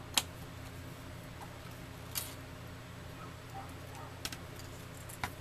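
A few sharp clicks and taps of a plastic laptop case and small tools being handled and set down on a desk while the laptop is turned over. The loudest click comes just at the start, with a softer one about two seconds in, a quick pair a little after four seconds and one more near the end, over a steady low hum.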